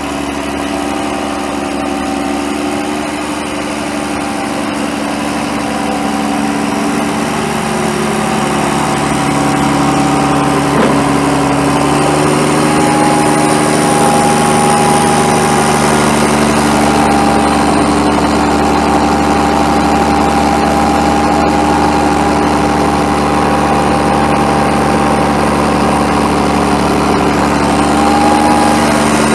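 Mercedes-Benz MBE900 6.4-litre inline-six diesel of a 2004 Freightliner FL80 truck running steadily at idle, with a steady whine over the engine note. The engine note steps up slightly about twelve seconds in.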